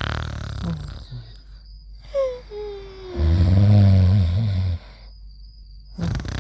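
Heavy snoring in slow cycles. A thin whistling wheeze falls in pitch about two seconds in, then a long, loud, rattling snore comes about three seconds in and lasts a second and a half.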